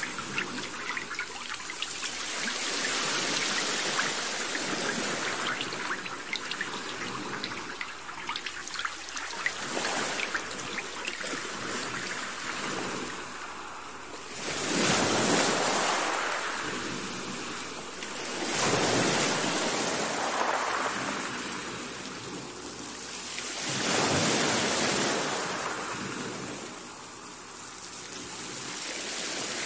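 Steady hiss of water from rain and flowing floodwater, crackling through the first half. From about halfway it swells and fades every four to five seconds, like surf.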